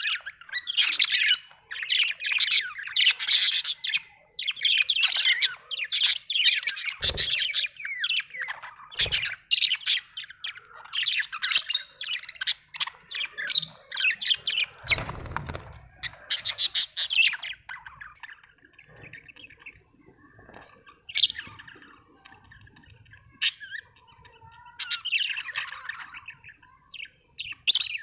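Budgerigars chirping and warbling in rapid, dense bursts, thinning to sparse single chirps after about 18 seconds. A brief low rumble sounds about halfway through.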